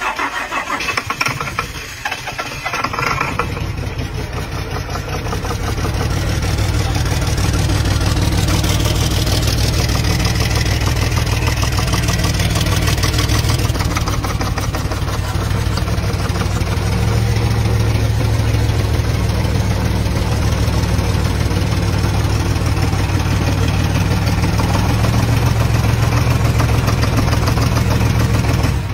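Secondhand inline six-cylinder diesel engine being test-run: it is cranked and catches about three seconds in, then runs steadily at idle for the rest of the time.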